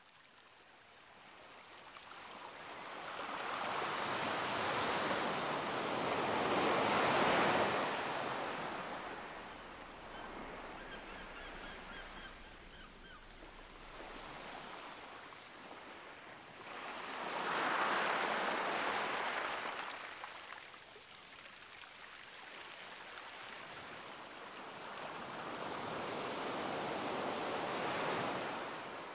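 Sea surf washing onto a shore: three slow swells of wave noise, each building and falling away over several seconds, about ten seconds apart, the first the loudest. A faint run of high chirps sounds briefly near the middle.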